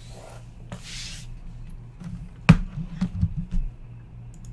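Hands on a desk: a brief swish of something sliding across a rubber playmat, then a sharp thump and a few soft knocks as a computer keyboard is set down on the mat.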